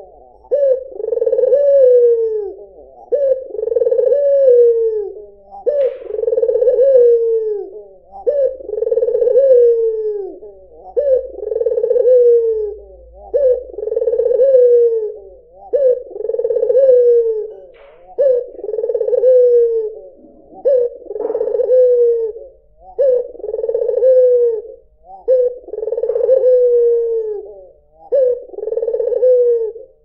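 Albino (white, red-eyed) Barbary dove cooing over and over, one rolling low coo about every two seconds.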